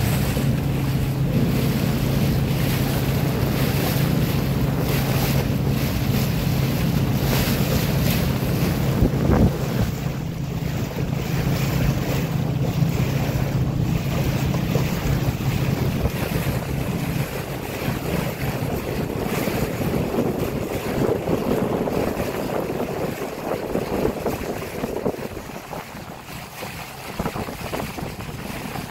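Wind buffeting the microphone over rushing water and a steady low boat-engine hum. The engine hum drops away about seventeen seconds in, leaving wind and water.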